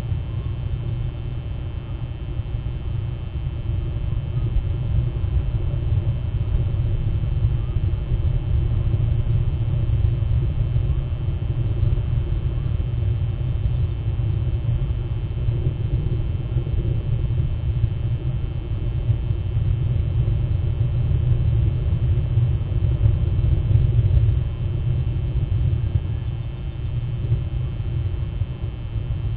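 Steady low rumble with faint steady tones above it, without any distinct events.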